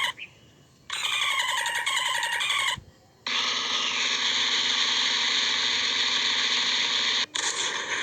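Sound-effect clips played one after another: a short wavering, pulsing call, then a long steady tone held for about four seconds that cuts off suddenly near the end, where another effect starts.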